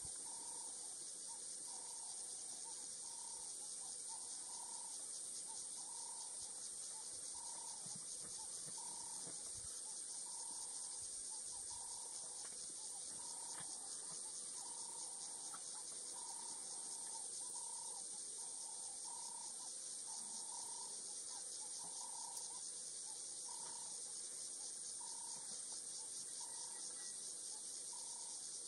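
Steady high-pitched insect chorus, like cicadas or crickets, buzzing without a break. Under it a short, lower call repeats about once a second.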